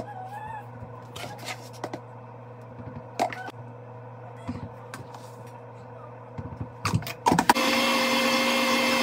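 Countertop blender switched on about three quarters of the way in, then running steadily at full speed with a steady whine as it blends a shake. Before that come scattered light clinks and knocks of a powder scoop against the tub and the jar.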